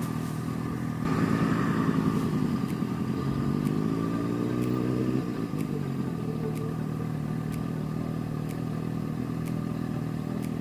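Motorcycle engine pulling away under throttle, its pitch rising for a few seconds before dropping back about five seconds in to a steady cruise.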